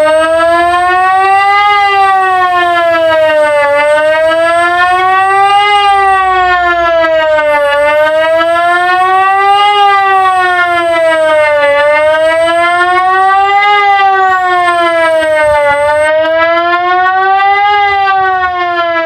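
Electronic civil-defence siren, which the uploader tentatively takes for an Ergatec Apex, sounding the German public warning signal (Warnung der Bevölkerung) in its monthly test. A loud, rising and falling wail, each cycle about four seconds long.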